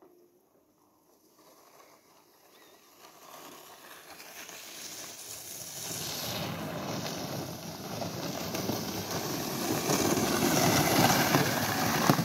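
Sleds sliding down a packed-snow run: a rushing hiss of runners on snow and wind on the microphone that starts faint and builds steadily louder as they pick up speed.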